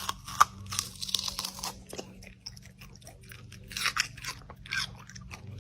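Close, irregular crunching and chewing: something crisp being bitten and chewed, in uneven bursts.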